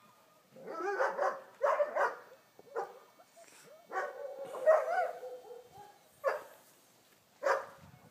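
Puppies yipping and barking in play: several short bouts of high-pitched yaps, with a longer wavering cry around the middle.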